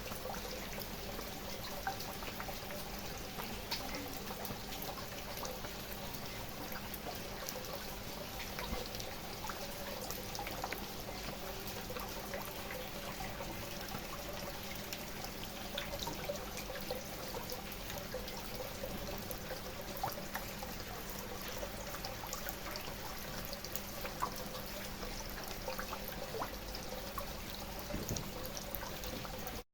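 Steady rain: a continuous wash of falling water with many small drops striking separately close by.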